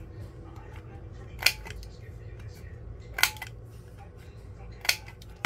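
Scissors snipping paper: four sharp clicks about every one and a half seconds, over a low steady hum.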